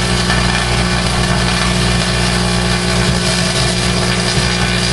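Microwave oven running with a loud, steady hum.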